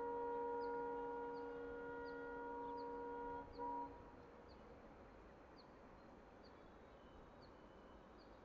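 Diesel locomotive air horn, an EMD WDP4's, sounding a long steady multi-tone chord. It stops about three and a half seconds in, followed by one short toot. After that, a bird chirps about twice a second over faint outdoor background.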